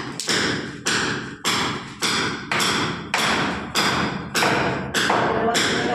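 Steady hammering on a wooden door frame being fixed into a concrete wall opening: about ten sharp blows, roughly one every 0.6 seconds, each ringing out in a bare concrete room.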